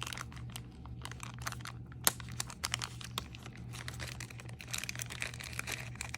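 Hands handling costume jewelry: irregular small clicks and crinkling, with one sharper click about two seconds in. A steady low hum runs underneath.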